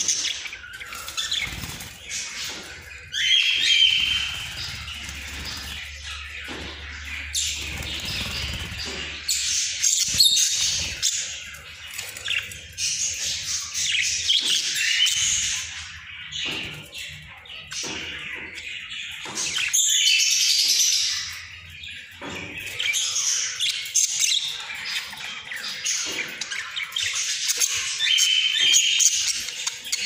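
A small flock of budgerigars warbling and chattering without a break, with rapid chirps and short squawks layered over one another and the odd flutter of wings.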